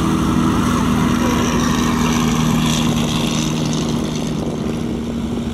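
Twin-engine propeller aircraft's piston engines running steadily at low taxiing power, a steady drone that fades a little near the end as the aircraft moves away.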